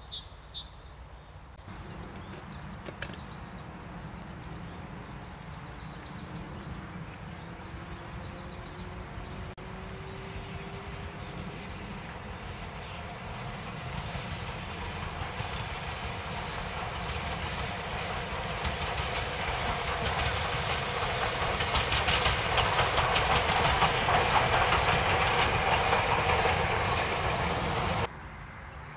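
Steam locomotive approaching while working hard: its exhaust beats grow steadily louder in a regular chuffing rhythm of about two to three beats a second, then cut off abruptly near the end. Birds chirp faintly in the first part.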